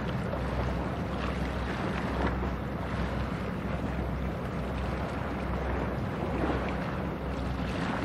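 Low steady engine drone of a passing general cargo ship, under a constant rush of wind on the microphone and water noise.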